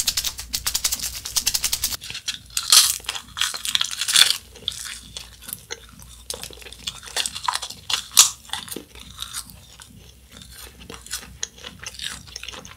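Crisp, close-miked crunching and chewing of flying saucer candy, a brittle wafer-shell disc. Rapid dense crackles for the first two seconds and a few louder crunches up to about four seconds in, then sparser, quieter chewing.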